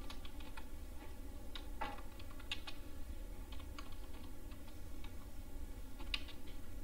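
Computer keyboard typing: scattered, irregular keystrokes as text is entered.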